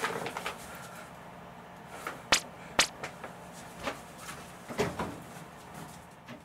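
A person moving about a small room handling things: several sharp clicks and knocks, the two loudest close together a little over two seconds in and a few more around five seconds, then the sound fades away.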